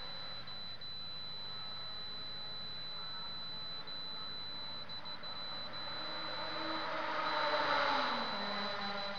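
A steady high-pitched whine over a low steady hum, with a car passing about seven to eight seconds in: its sound swells, drops in pitch as it goes by, then fades.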